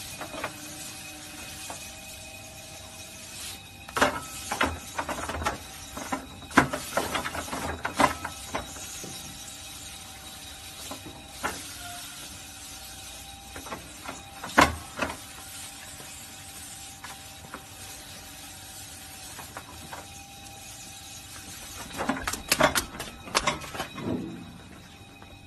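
Electric rotating cattle brush running with a faint steady motor whine, its bristles scrubbing against a cow's head. Clusters of sharp knocks come a few seconds in, once about halfway, and again near the end.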